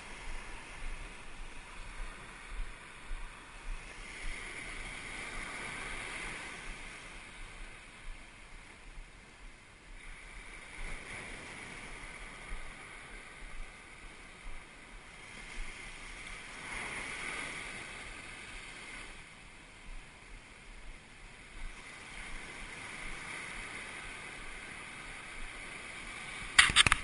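Waves breaking and washing up a sandy beach, the rush of surf swelling and fading every few seconds.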